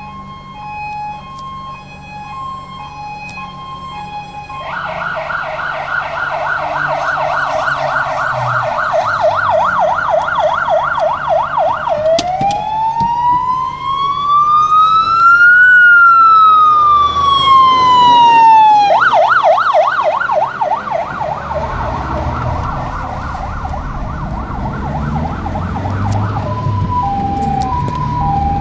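Fire engine siren cycling through its patterns: a two-tone hi-lo, then a fast yelp, then one slow rising and falling wail, the yelp again, and back to the hi-lo near the end. It is loudest as the truck passes, about halfway through, and a diesel engine's rumble rises in the second half.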